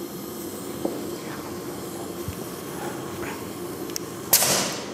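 A short burst of compressed air hissing out at the air line of a Tatra axle's air-operated differential locker, starting sharply near the end and tailing off within about half a second. Before it there is a low steady hum with a couple of light clicks.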